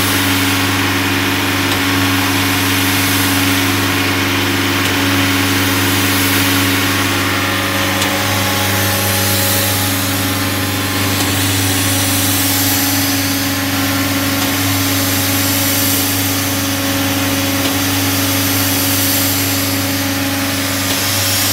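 Nitrogen generator servicing cart running steadily, with a constant mechanical hum. A hiss of air rushes in and fades every few seconds as the booster strokes.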